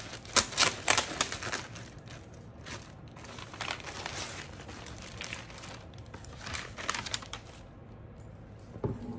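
Clear plastic bag crinkling and crackling in sharp bursts as a handbag is worked out of it, densest in the first second and a half, then in scattered bursts.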